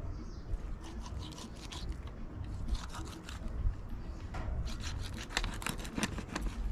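Kitchen knife cutting through raw rabbit meat on a plastic cutting tray: a run of crisp scrapes and small crunchy clicks, thickest in the second half, over a low rumble.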